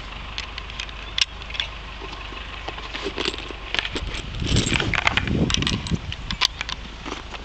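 Rustling of long grass and clinking of kit as someone moves through the field carrying a rifle, with scattered sharp clicks and knocks. The rustling grows louder about halfway through.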